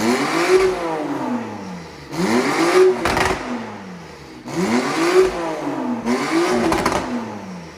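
Porsche 911 Carrera's flat-six engine revved hard four times, each rev climbing quickly and falling away more slowly.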